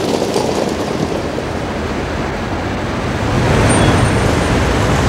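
Road traffic noise: a steady rumble of car and truck engines in congested city streets, growing louder about three seconds in.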